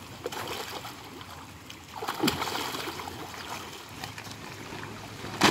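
Pond water splashing and sloshing around people wading waist-deep, with a sharp knock at the very end.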